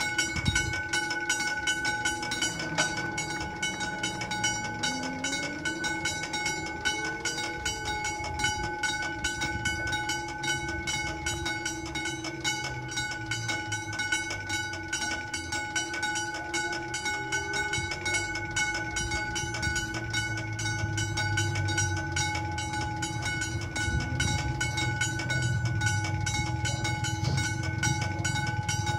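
Italian level crossing's electronic warning bell ringing rapidly and without a break while the crossing is active and the barriers come down. A low tone rises and falls in pitch about five seconds in, and a low rumble builds near the end.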